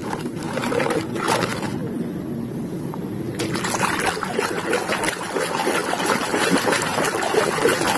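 Water splashing and sloshing as a muddy plastic toy is swished back and forth by hand in a stream, growing louder and busier about three seconds in.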